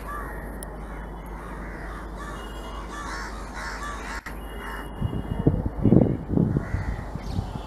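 Crows cawing repeatedly over a steady low background hum. About five seconds in, a louder bout of low rumbling comes in for a second or two, then dies down.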